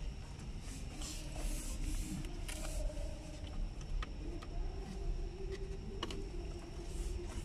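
Wiring and plastic dashboard trim being handled as a cable is fed behind a car's dash: rustling and scraping, with bursts of hissy rustle in the first few seconds and a few sharp clicks after that.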